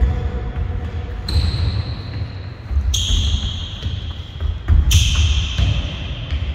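Running footsteps thudding on a sports hall floor, with rumbling from the moving handheld camera, and three sudden high squeaks of sneaker soles on the court, about a second in, about three seconds in and about five seconds in.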